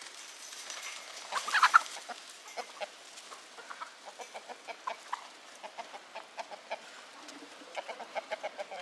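Chickens clucking: a steady run of short clucks, with a louder burst of calls about a second and a half in.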